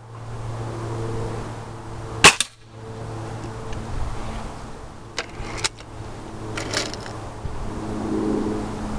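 A .22 Beeman RS2 Grizzly X2 break-barrel spring-piston air rifle fires once about two seconds in, a sharp crack followed at once by a second, smaller click. A few lighter clicks come some three to five seconds later, over a steady low hum.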